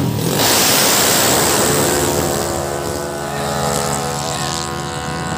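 Small racing scooter engine running: a loud rush of noise at first, then a steady, even-pitched engine drone.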